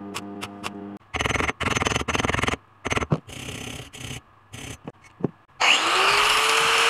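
Wire brush scrubbed back and forth over a fresh weld on steel square tubing in short bursts. About five and a half seconds in, an angle grinder switches on and runs, its pitch rising as it spins up.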